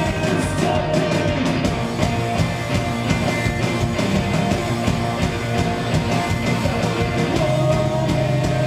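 Live punk rock band playing loud: distorted electric guitars, bass guitar and drums through a concert PA, heard from within the crowd.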